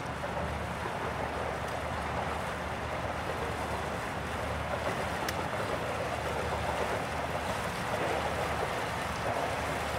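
Steady wash of water lapping around a small fishing boat, with wind, an even noise without distinct events.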